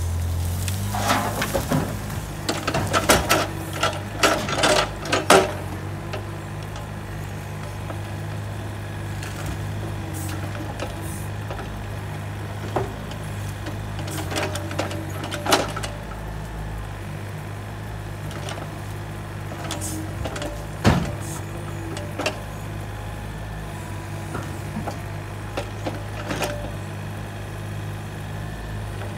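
Takeuchi TB135 mini excavator's diesel engine running steadily under work. In the first five seconds there is a quick run of cracks and knocks as a stump is shaken and dirt and roots fall, then occasional single knocks and clunks as brush is dropped into a dump trailer.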